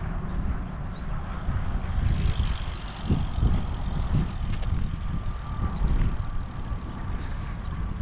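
Wind rumbling and buffeting on the microphone, with the hiss of a bicycle passing close about two seconds in.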